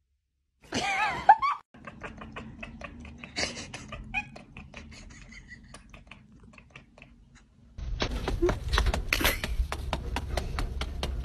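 A cat meows once about a second in, with a bending pitch. A run of quick clicks and short chirps follows, typical of a cat chattering at something outside a window. Near the end a louder, noisier stretch with sharp clicks takes over.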